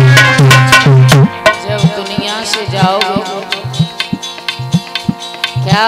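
Instrumental interlude of a Hindi folk bhajan. Hand drum strokes are loud and fast for about the first second, then drop back to lighter beats while a melody instrument plays a wavering tune over them.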